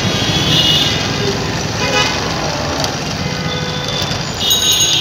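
Busy road traffic running steadily, with vehicle horns sounding briefly a few times.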